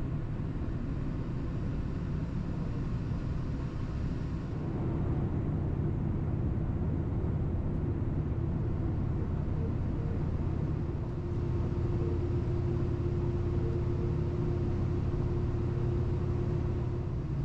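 Inside the cabin of a diesel train running at speed: a steady low rumble that grows a little louder about four seconds in, with a steady hum joining it.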